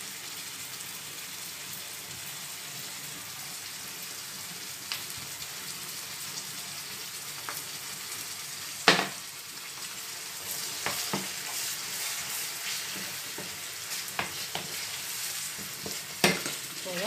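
Vegetables sizzling in oil in a frying pan, stirred with a wooden spoon; the frying grows louder and busier about ten seconds in. Several sharp knocks, the loudest about nine seconds in and another near the end.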